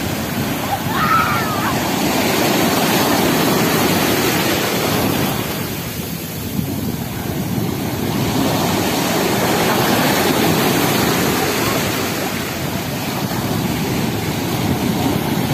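Black Sea surf: small waves breaking and foaming up the shore in a steady rush that swells and eases, dipping briefly about six seconds in.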